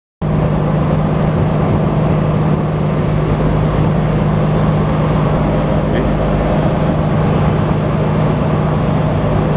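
A fishing boat's engine running steadily under way, with one constant low drone and water rushing along the hull.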